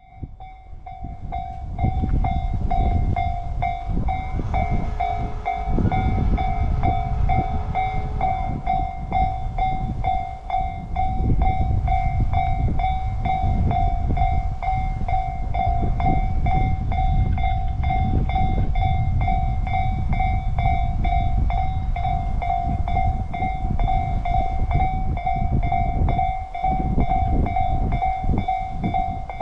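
A Japanese level-crossing warning bell rings steadily in an even, repeating pattern while a Tobu Isesaki Line electric train passes with a loud rumble and clacking wheels. The rumble builds over the first two seconds. A held horn note sounds about four seconds in and lasts around three seconds.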